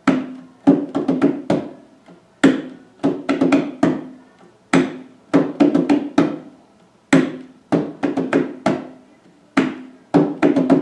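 Hand drum played with the bare hands in a repeating rhythm of several strokes, each group led by a loud stroke and coming round about every two and a half seconds.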